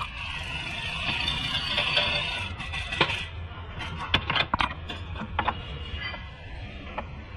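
Metal clinks and knocks as the drive shaft and steering knuckle are handled, a cluster of them about four seconds in, over a steady low hum, with a hiss for the first three seconds.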